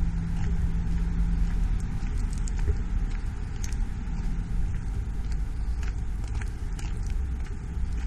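Footsteps on gravel, short crunches roughly every half second to second as someone walks, over a steady low rumble.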